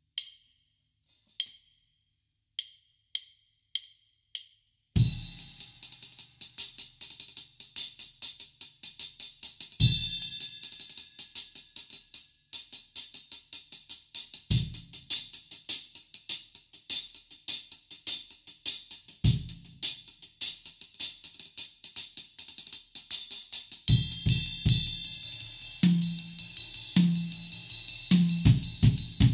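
Acoustic drum kit played with wooden sticks: a few light ringing taps, then from about five seconds in a steady, busy hi-hat and cymbal rhythm with a heavy bass-drum and cymbal accent about every five seconds, and tom hits near the end.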